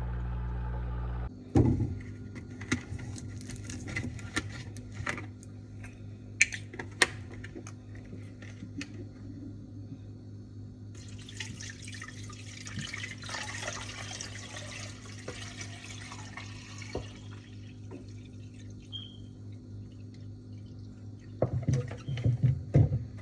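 Water running for several seconds, with scattered clinks and knocks before it and a few louder knocks near the end, over a steady low hum.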